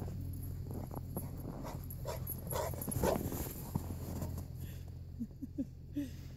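A dog making a few short rising whines about five seconds in, with footsteps crunching in snow.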